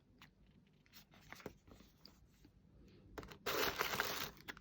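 Small clicks and taps of items being handled, then a short loud rustle of packaging being crinkled or torn about three and a half seconds in, as the next product is taken out of the box.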